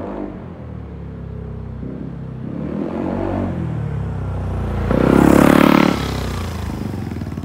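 Yamaha Cygnus X scooter's single-cylinder engine, breathing through an aftermarket D60 bullet muffler with its baffle fitted, accelerating past at close range. The exhaust note builds, is loudest for about a second around five seconds in, then falls away as the scooter pulls off.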